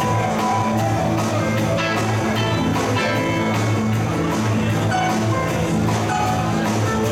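Live rock band playing a blues-rock tune: electric guitars over bass and a drum kit keeping a steady beat.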